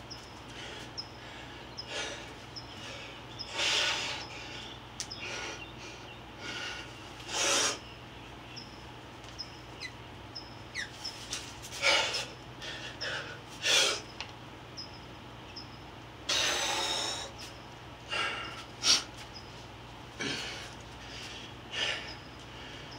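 A person breathing hard, with sharp noisy exhales and sniffs every second or two and one longer breath about two-thirds of the way through, over a faint steady low hum.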